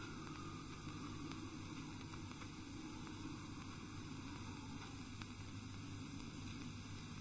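Low steady hum and hiss with a few faint ticks: the background noise of a 1971 film soundtrack with no dialogue, music or effects.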